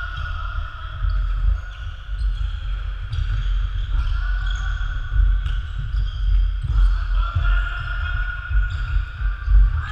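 Running feet thudding on a wooden sports-hall floor, with athletic shoes squeaking briefly again and again as players cut and turn.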